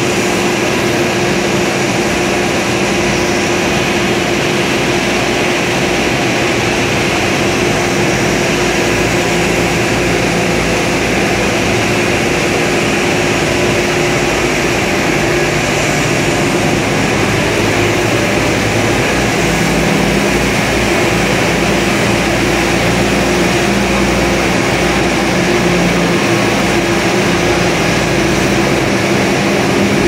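Steady, loud roar of a regenerative aluminium melting furnace running, its gas burners and combustion-air blowers going without a break, with a constant hum underneath.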